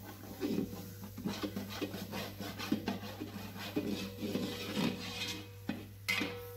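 Long-handled steel spatula scraping and stirring diced vegetables across the bottom of a large metal cooking pot, in irregular strokes about twice a second, the last near the end the loudest.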